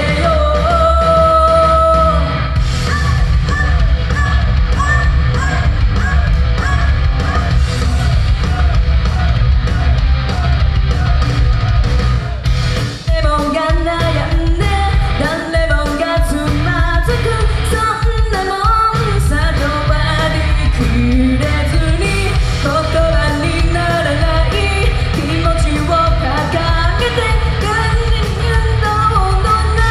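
A woman singing live in Japanese into a handheld microphone over loud rock-pop backing music with a heavy drum and bass beat, heard through the hall's PA. The drums and bass thin out for a few seconds near the middle, then come back in.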